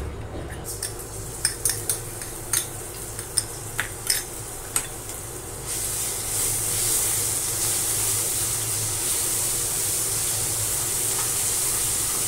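Crushed garlic and ginger frying in hot oil in a pan, stirred with a spatula. Scattered clicks and taps of the spatula on the pan come first, then a steady sizzle takes over from about halfway in.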